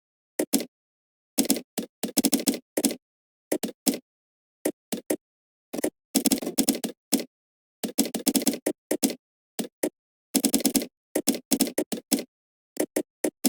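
Typing on a computer keyboard: short runs of quick keystrokes broken by pauses, with dead silence between the runs.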